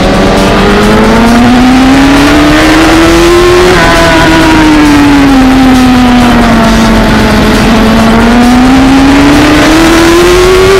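Suzuki GSX-R1000 inline-four racing engine at high revs, heard loud from an onboard camera with wind rush. The revs climb for about four seconds, drop suddenly and keep falling for a few seconds, then climb again near the end.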